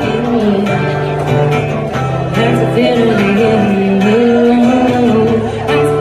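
A woman singing a song with her own strummed acoustic guitar accompaniment, performed live.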